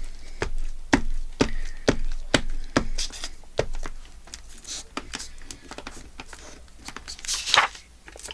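Paper and craft pieces being handled on a tabletop: a run of light taps about two a second, thinning out, then a brief rustle of paper near the end.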